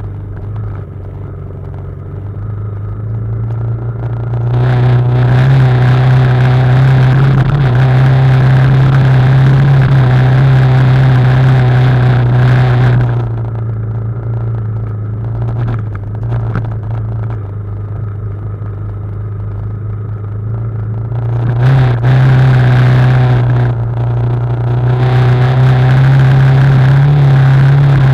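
BMW G310GS single-cylinder motorcycle engine running at fairly steady revs while riding. It gets louder, with a rush of noise over it, for about eight seconds from about four seconds in, and again for the last six seconds or so.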